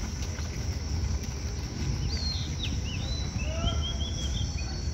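Open-air ambience: a steady low rumble, a constant high insect buzz, and a bird calling with a run of quick chirps that rise and fall, from about two seconds in to near the end.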